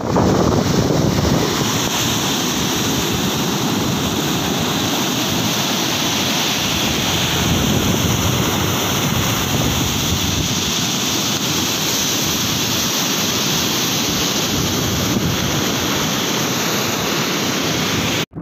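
Rough sea surf breaking on a sandy beach in a steady, continuous wash of waves, with wind buffeting the microphone. The sound cuts off abruptly for an instant near the end.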